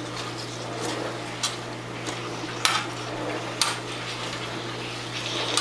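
Metal tongs and spatula stirring chicken, onions and bell peppers in a nonstick skillet. They scrape the pan, with a few sharp clacks of metal on the pan.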